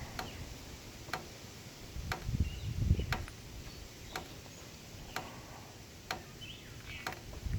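Water dripping after rain: sharp single drips about once a second, with faint low handling thuds in between.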